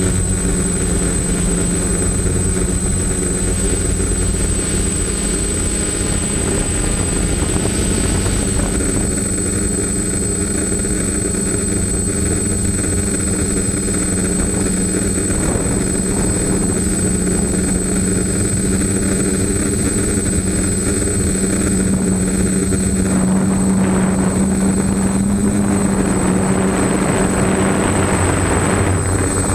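Multirotor drone's electric motors and propellers running, heard from a camera mounted on the drone as it climbs: a steady pitched buzz with a thin high whistle above it. Rushing wind noise joins in for the last few seconds.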